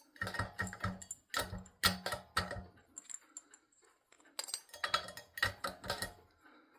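Light metallic clicks and clinks from hands working at the blade-mounting screws and blade irons of a ceiling fan's motor hub, in two bursts with a pause about halfway.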